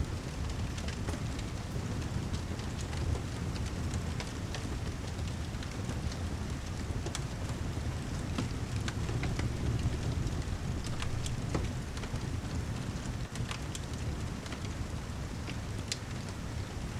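Steady heavy rain mixed with a crackling fireplace: a low rumble underneath, with scattered sharp pops and clicks.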